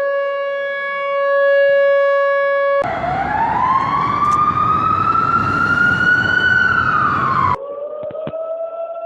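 Emergency warning sirens played one after another with abrupt cuts: first a steady held siren tone; about three seconds in, a louder wail over heavy noise that rises and then falls; about seven and a half seconds in, a quieter siren that starts to rise again.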